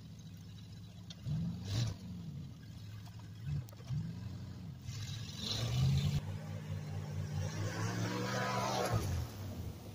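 1990 Dodge W250 skidder truck's engine revving in a few short bursts, then held at higher revs for several seconds before dropping back, as the truck works in snow on tractor tires without chains.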